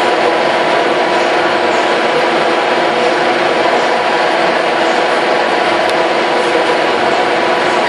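Turret lathe running, its spindle spinning bar stock while a cutting tool turns it down: a loud, even machine noise with several steady tones over a hiss.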